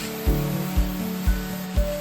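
Background music with a steady beat of about two thumps a second and held notes, over an even steady hiss.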